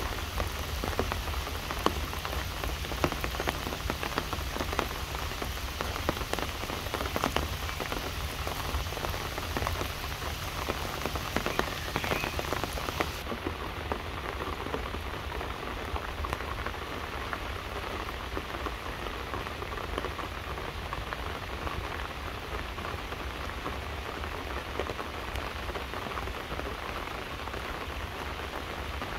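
Steady rain falling on tree leaves and grass, a constant hiss with many separate drops heard as small ticks.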